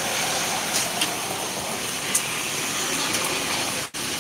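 Steady hiss of a busy street-food stall, with food sizzling on the hot counter and faint clicks of utensils over market bustle. The sound cuts out for an instant near the end.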